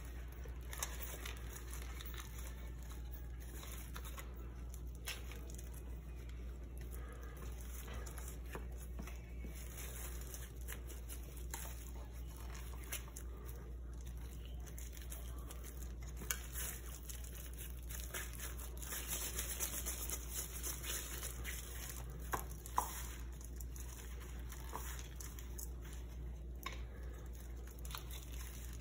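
Faint rustling and crinkling of gloved hands working ground peanuts and paper candy cups, with a few small sharp clicks and a steady low hum underneath.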